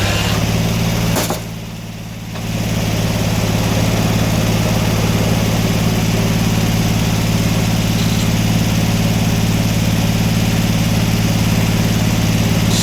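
Sawmill's engine running steadily, with a click and a brief drop in level about a second in.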